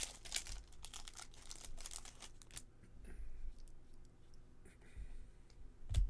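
Trading cards and packs being handled: a quick run of clicks and paper-like rustling as cards are flicked and slid through, then sparser soft clicks and a low thump near the end.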